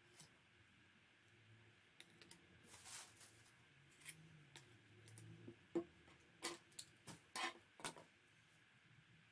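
Card bunting flags being handled and set down on a wooden tabletop: faint rustles and light taps, clustering into several quick taps in the second half.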